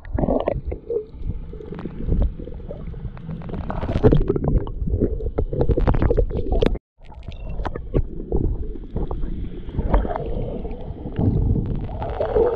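Muffled water sloshing and bubbling around a snorkeler's action camera, a low rumble full of small crackles and gurgles, with the sound cutting out completely for a moment about seven seconds in.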